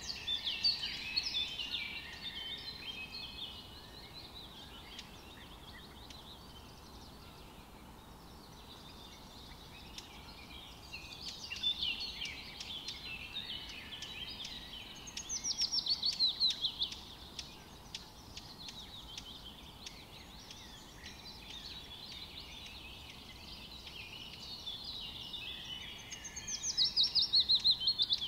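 Songbirds singing: several short phrases of rapid high notes, spaced several seconds apart, with the loudest ones a fast falling series of notes. A faint, steady background hiss lies underneath.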